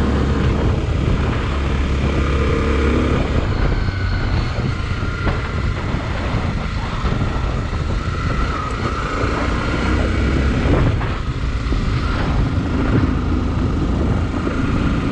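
Motorcycle engine running while riding, its pitch shifting as the speed changes, over a steady rush of wind and road noise.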